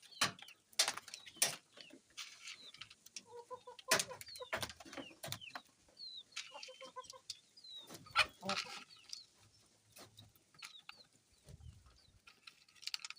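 Chickens clucking with short, high falling peeps while they feed, among many sharp scattered taps.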